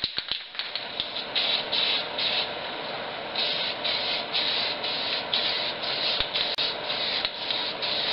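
Primer being sprayed onto a welded steel cart in short, repeated hissing passes, about two a second, after a few clicks near the start.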